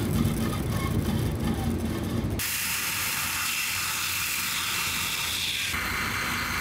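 A bandsaw cutting a wood-and-resin knife handle block. Then, about two and a half seconds in, it switches abruptly to a belt grinder sanding the block with a steady hiss.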